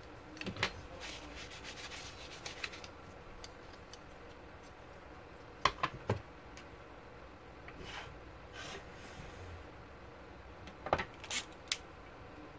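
Hands handling a laptop CPU fan and heatsink assembly as the fan is fitted back onto the heatsink: rubbing and scraping, with a few small clusters of light clicks.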